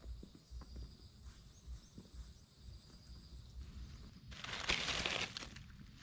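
A steady high insect drone that cuts off about four seconds in, then dry fallen leaves rustling and crackling loudly under a gloved hand reaching into the leaf litter, followed by a few lighter crackles.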